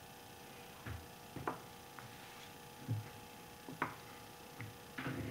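Light, scattered knocks and clicks as small metal parts and tools are handled, picked up and set down, about seven in a few seconds, over a faint steady hum.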